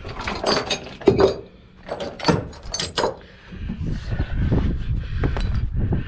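Steel tie-down chains clanking and rattling against the tractor's hitch and the trailer deck as they are handled and unhooked: a handful of sharp metal clinks over the first three seconds. From about four seconds in, a low rumbling noise takes over.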